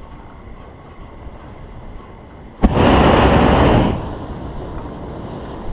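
Hot air balloon propane burner fired in one blast: a sudden roar starting about two and a half seconds in, lasting just over a second, then cut off, over a low steady rumble.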